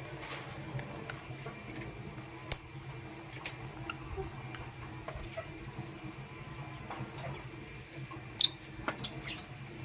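Lovebird giving short, sharp, high squeaky chirps: one about two and a half seconds in and a quick run of three near the end, with faint small ticks in between, over a steady low hum.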